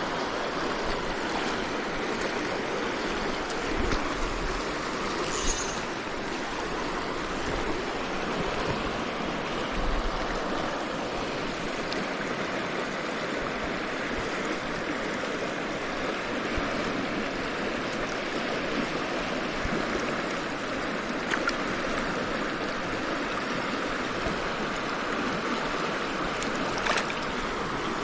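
A shallow, rocky river running: a steady rush of flowing water, with a few brief knocks or splashes standing out now and then.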